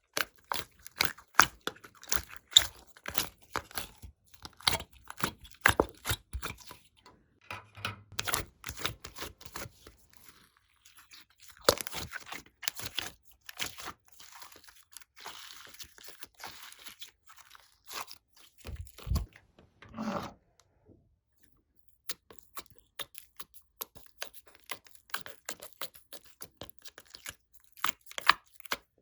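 Slime being squeezed and stretched by hand, crackling and popping with many sharp little clicks. A dull thump comes about two-thirds of the way through, and the sound stops briefly soon after.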